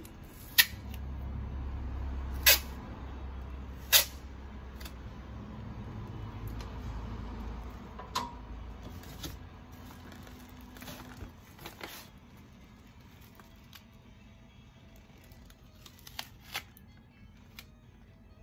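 Items being handled and packed into a box: sharp clicks and knocks, the three loudest in the first four seconds and smaller ones after, over a low rumble that fades about halfway through.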